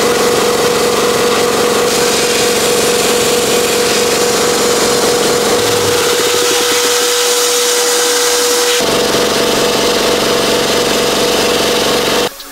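Abrasive blasting in a blast cabinet: the blast gun gives a loud, steady hiss of compressed air and grit, with a steady hum under it. The sound shifts slightly about nine seconds in and cuts off just before the end.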